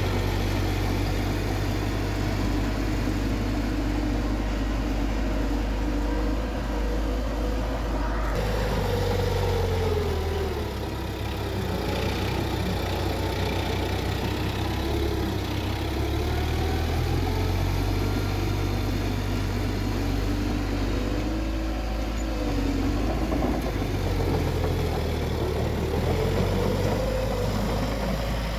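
Heavy diesel engine of a bulldozer running steadily, its pitch rising and falling several times as the throttle and load change.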